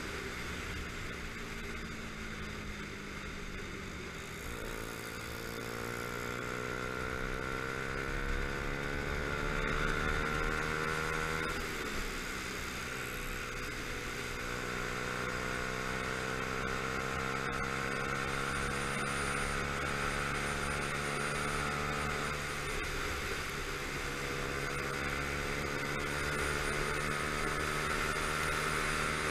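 Motorcycle engine heard from the rider's own bike as it rides along, its pitch climbing under acceleration and dropping at gear changes about four and twelve seconds in, then holding fairly steady, over a constant rush of noise.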